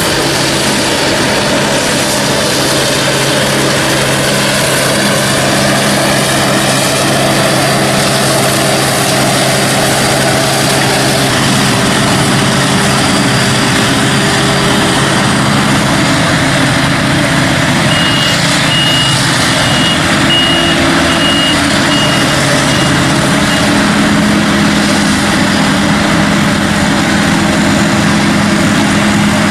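Heavy farm machinery engines running steadily at the maize silage harvest, with a reversing alarm beeping several times about two-thirds of the way through.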